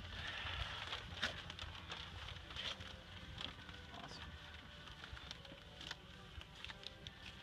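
Faint rustling and crinkling of newspaper as it is handled and pressed into a car's wheel well for masking, with scattered small crackles.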